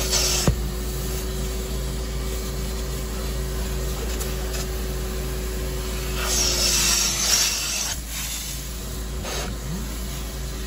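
Carpet and upholstery extractor running with a steady hum while its upholstery wand is drawn over a cloth car seat, rasping on the fabric under suction. Loud hissing bursts come right at the start and again about six seconds in.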